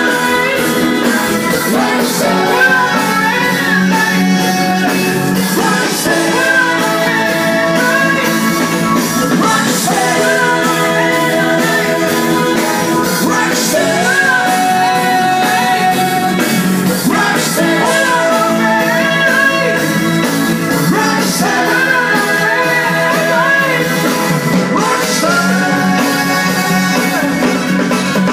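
Rock song with a singing voice played loudly over large loudspeakers driven by a rack of QSC GX5 power amplifiers, with little of the deep bass coming through.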